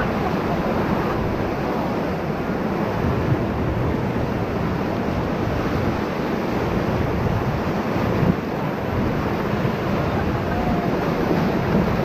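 Whitewater rapids rushing and churning around an inflatable raft, a steady, loud roar of water.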